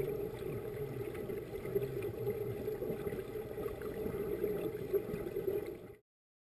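Muffled underwater sound of a swimming pool, as heard by a camera below the surface: a steady dull watery rumble with a few faint knocks. It cuts off suddenly near the end.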